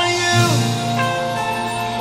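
Gospel music playing, with held notes and a few sliding pitches.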